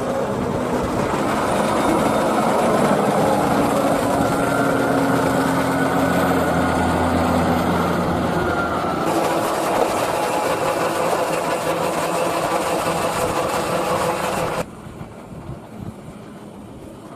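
New Holland T7 tractor engines running under load as tractors pull Bergmann forage wagons over a corn silage clamp. The sound changes abruptly about nine seconds in, and again about two and a half seconds before the end, where it drops much quieter.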